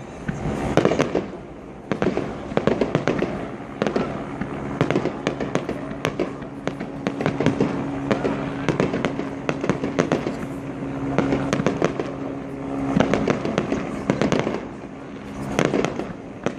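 Fireworks display going off: a dense run of sharp bangs and crackles from bursting shells, with a steady low hum underneath for several seconds in the middle.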